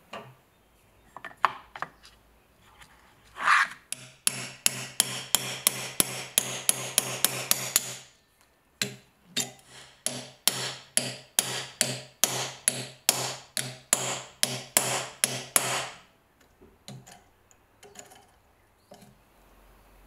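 A steel hammer strikes the rusty steel handle of a pocket knife on a wooden block. It taps rapidly, about four blows a second, in two long runs with a short pause between them. A few lighter knocks come before and after the runs.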